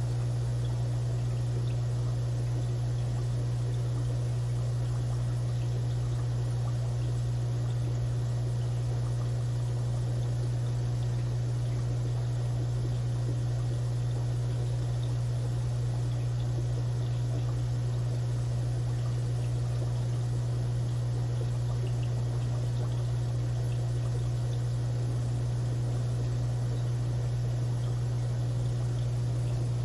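Aquarium filter running: a steady low hum with water trickling underneath.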